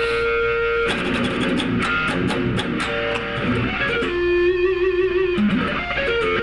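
Electric guitar played lead: a held note, then a fast run of picked notes, then a long held note with vibrato, and a few more notes near the end.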